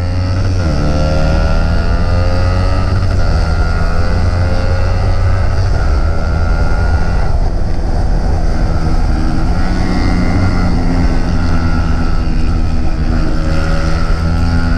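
A 150 cc single-cylinder sport motorcycle engine accelerating hard. Its pitch climbs right after a gear change at the start, then it holds at high revs under loud wind rush, with brief changes in the engine note about seven and ten seconds in.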